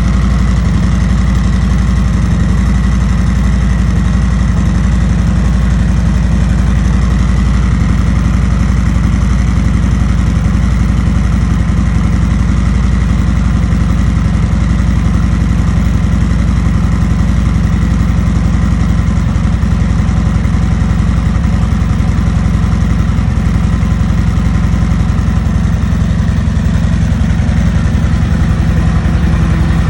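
A 2020 Harley-Davidson Road Glide's V-twin engine idles steadily through its stock exhaust.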